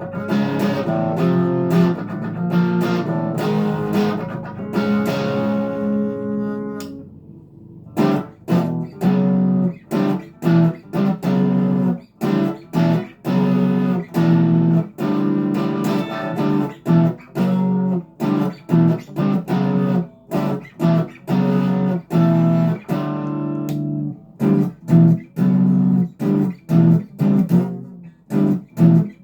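Legacy LP 300 Les Paul-style electric guitar played through an amplifier. Strummed chords ring out for about seven seconds and fade, then short, choppy chords are played in a steady rhythm.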